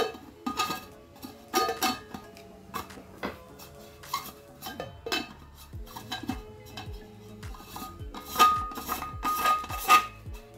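Stainless-steel vacuum thermal bottle being handled, its plastic screw lid twisted off and back on, with a series of taps and clinks, some briefly ringing; the busiest clinking comes near the end.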